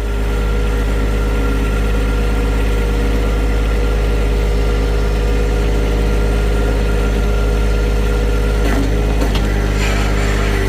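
John Deere farm tractor's engine running steadily at a constant speed, with a few light knocks near the end.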